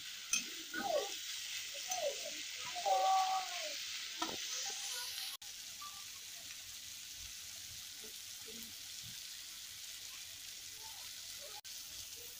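Chopped vegetables sizzling in hot oil in an aluminium kadai, a steady frying hiss. A metal spatula scrapes and knocks against the pan in the first few seconds, with some short pitched squeaks, and then only the sizzle goes on.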